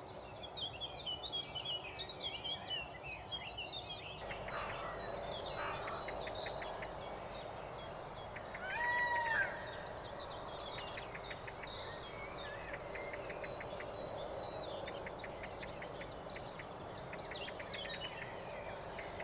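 Several birds singing and calling over a steady outdoor hiss, with quick repeated trills at first. The background changes abruptly about four seconds in. Around nine seconds in there is one louder, drawn-out call that rises and falls.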